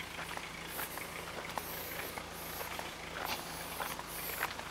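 Footsteps crunching on a wood-chip path at a walking pace, over a steady low hum.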